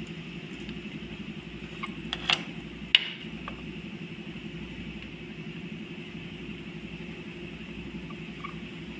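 Steady background hum, with a few sharp clicks and taps of wire leads and clips being handled at the battery terminals, the loudest about three seconds in.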